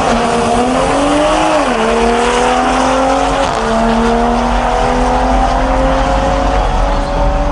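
A drag car's engine at full acceleration down the strip. Its pitch climbs, then drops with a gear shift about a second and a half in and again about three and a half seconds in, and it pulls steadily as the car runs away into the distance.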